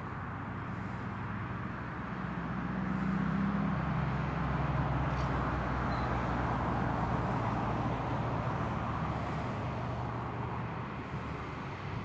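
Valtra tractor's diesel engine working steadily under load, pulling a four-furrow plough through the soil. It gets louder about three seconds in as the tractor comes closer.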